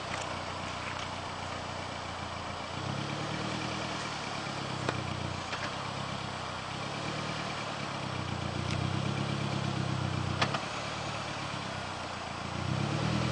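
Suzuki Jimny JB43's four-cylinder petrol engine running at low revs under load in a muddy rut. It grows louder three times for two to three seconds at a stretch as the throttle is pressed, with a few sharp knocks in between.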